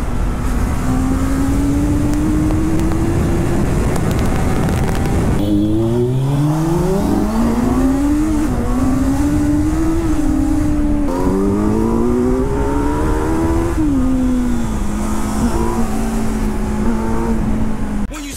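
Inline-four sport motorcycle engines revving hard and accelerating, the pitch climbing and then dropping back at each gear change, over a heavy rushing noise. The sound changes abruptly twice, and near the end the engine settles to a steadier note.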